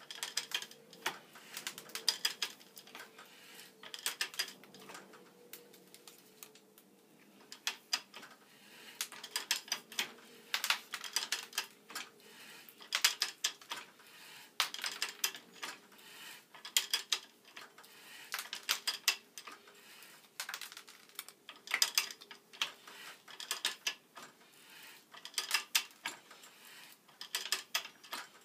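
Ridgid OO-R ratcheting hand pipe threader cutting threads on black iron pipe: bursts of rapid metallic ratchet clicks about every two seconds as the handle is swung back and forth.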